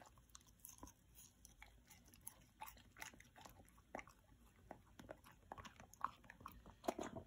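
Husky chewing a cube of fruit just taken off a fork: a run of small, irregular crunches and mouth clicks.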